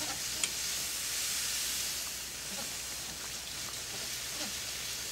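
Milk-and-flour pan gravy sizzling with a steady hiss in a skillet while being whisked, with a few faint taps of the whisk against the pan, one sharper tap about half a second in.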